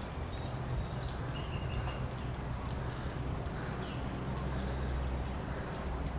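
Outdoor background: a steady low rumble with a short, faint high chirp about a second and a half in and a few faint ticks.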